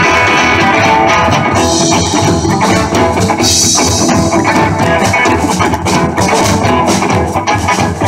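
Live rock band playing an instrumental passage: guitar over a steady drum-kit beat.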